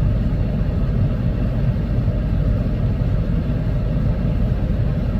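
Car engine idling: a steady low rumble with no distinct events.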